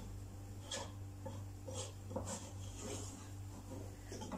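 Wooden spatula scraping through a thick, drying paste of flour and milk in a cooking pot as it is stirred, a few soft scrapes at uneven intervals.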